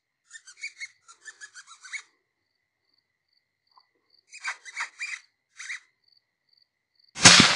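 Lip squeaks used to stop a fox: two quick runs of short, high squeaks. Near the end a single shot from a suppressed Sako .223 rifle, loud and sudden, trailing off over about a second.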